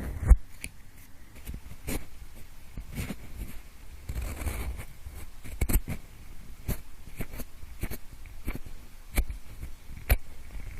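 Pencil tapping and scraping near the microphone, imitating the sound of ear cleaning: irregular light taps and short scratchy strokes, with a longer scrape about four seconds in.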